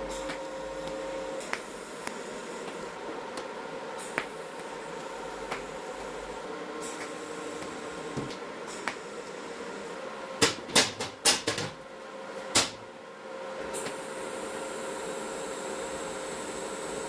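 Scattered sharp clicks and knocks over a steady faint hum, with a quick cluster of louder knocks about ten to eleven seconds in and one more shortly after.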